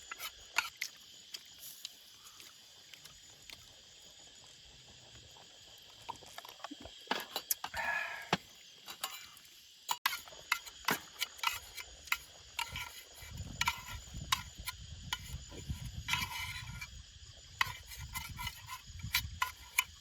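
Night insects trilling steadily, with scattered sharp clicks and taps of cooking utensils as grilled meat is scooped and served. A brief higher sound about eight seconds in, and a low rumble through the second half.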